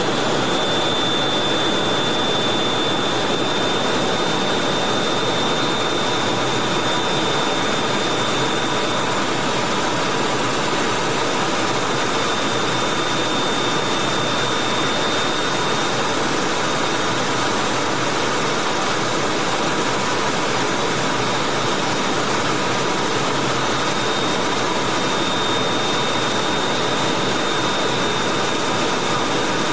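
Steady jet-cockpit noise in flight aboard a Mirage III: the rush of airflow and the Atar 9C turbojet running at cruise, even and unbroken, with a thin high whine over it.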